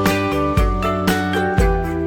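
Background music: an upbeat track with guitar over a steady, punchy beat.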